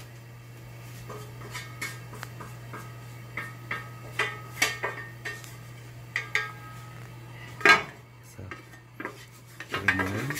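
Clinks and knocks of a square metal omelette pan and a wooden spatula on a gas range, over a steady low hum. There is a sharp knock about three-quarters of the way through, and a quick run of scraping and clattering near the end.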